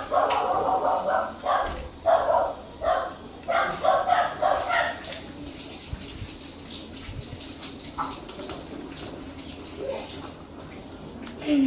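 A dog barking in a rapid series of barks for about the first five seconds, then falling quiet apart from faint small clicks.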